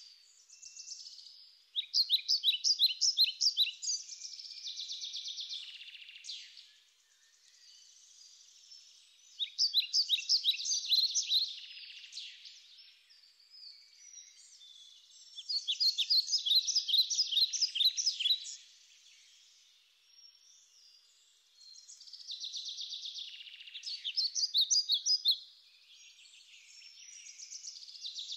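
Birds chirping: bursts of rapid, high-pitched chirps a few seconds long, coming back about every six seconds, with softer chirping in between.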